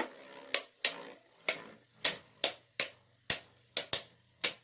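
Sharp plastic clicks and knocks, about ten at uneven spacing, from 3D-printed Beyblade spinning tops striking each other in the stadium.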